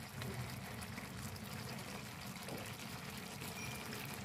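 Braising sauce simmering in a pan of round scad: a steady fine bubbling with scattered small pops.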